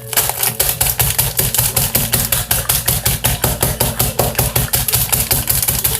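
A bag of Takis chips being pounded fast and hard, crushing the hard rolled tortilla chips inside into small pieces. The blows are quick and evenly spaced, several a second, with the bag crunching on each hit.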